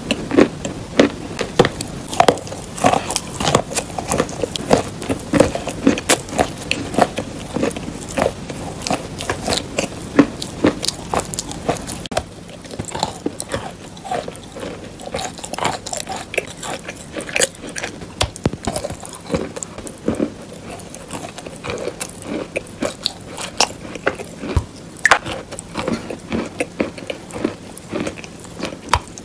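Close-miked biting and chewing of lumps of chalk: sharp crunchy snaps and gritty crackling as pieces are bitten off and ground between the teeth. The crunches are dense for the first twelve seconds or so, then quieter and sparser.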